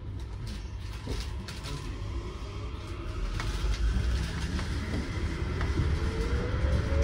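Yurikamome rubber-tyred automated train accelerating: a rising electric motor whine climbs steadily in pitch over a low rumble that grows louder as the train gains speed.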